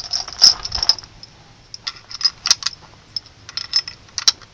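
Gewehr 98 Mauser bolt-action rifle being handled: sharp metallic clicks and clacks of the bolt and cartridges, in several short clusters.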